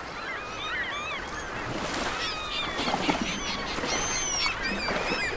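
Gulls calling: many short overlapping cries and squeals that rise and fall in pitch, growing busier about two seconds in.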